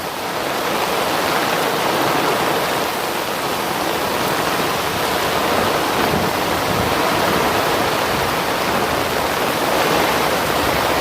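Heavy rain pouring down, a loud steady hiss of rainfall.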